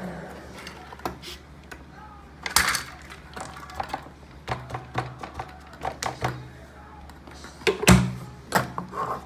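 Shark vacuum's motor whine dying away at the start, then handling of its plastic dust bin: scattered clicks, knocks and crunchy taps of debris and dry beans, with a louder thump near the end.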